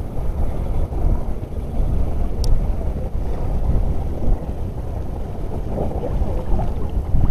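Wind buffeting the microphone, a steady rumbling noise, with choppy sea water washing close by.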